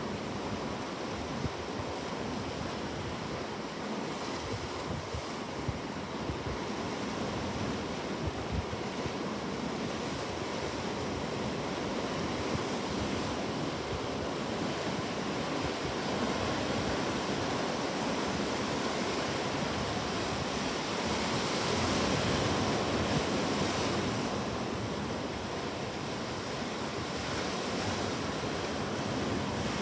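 Ocean waves breaking and washing on a shore in a continuous surf, swelling a little louder about two-thirds of the way through.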